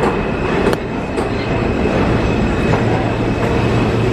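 New York City subway train, a loud steady rumble with a few sharp clicks in the first second and a low hum coming in after about a second and a half.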